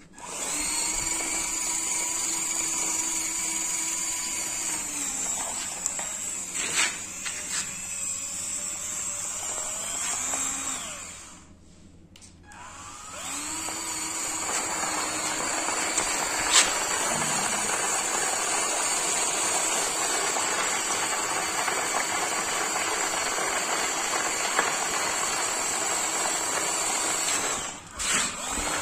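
Small electric drive motor and gearbox of a homemade radio-controlled tractor whining steadily as it drags a leveller blade through loose soil. The whine sinks and dies away about eleven seconds in, then starts up again about two seconds later, with a few sharp clicks along the way.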